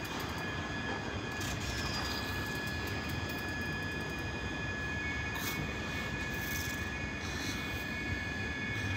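ScotRail Class 385 electric multiple unit standing at the platform, giving a steady hum with several thin, high held whining tones from its electrical equipment; one more tone joins about four seconds in.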